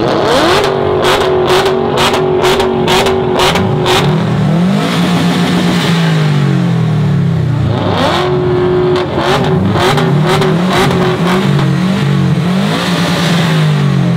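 Subaru Impreza WRX STI's turbocharged flat-four revved up and held high for a few seconds with a quick string of sharp pops, then dropping back, and revved and held again about eight seconds in.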